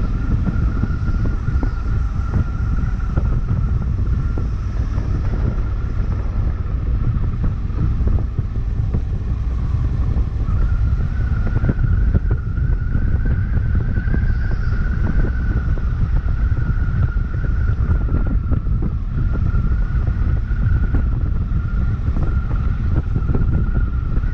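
Honda CRF1100L Africa Twin's parallel-twin engine running while under way, mixed with heavy wind rumble on the microphone. A steady high whine runs over it and rises slightly in pitch about ten seconds in.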